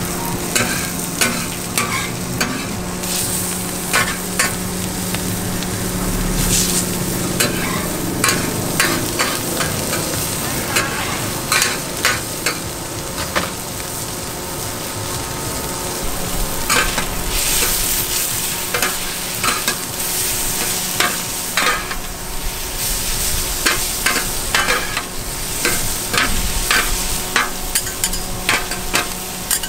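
Food frying and sizzling in a hot pan while it is stir-fried, a metal spatula clanking and scraping against the pan in sharp, irregular strikes, over a steady low hum.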